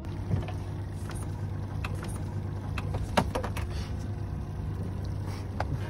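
Small boat's outboard motor running steadily at low speed, a low even hum, with a few light knocks and clicks over it.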